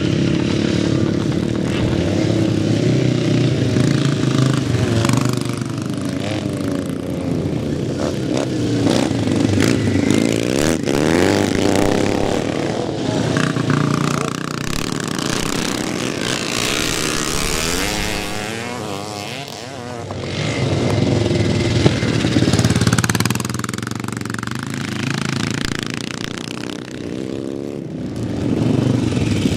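Vintage pre-1965 scrambles motorcycles racing past, their engines revving and easing off so the engine note keeps rising and falling. More than one bike is heard at once, and the sound dips briefly about two-thirds of the way through.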